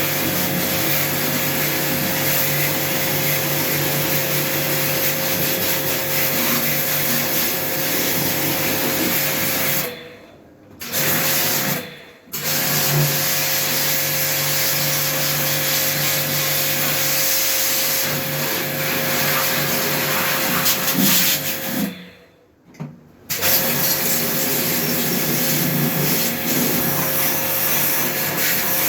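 High-pressure jet pump of an air-conditioner washer running steadily with a rushing hiss and a hum, used to clean the unit. The spray stops twice: a short break about ten seconds in and another a little past twenty seconds.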